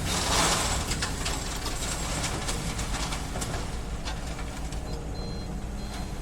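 Diesel excavator engine running under a steady low rumble, with a rush of noise in the first second and scattered knocks and clatter, typical of stone being dug and dumped from a barge. Faint short high beeps come in near the end.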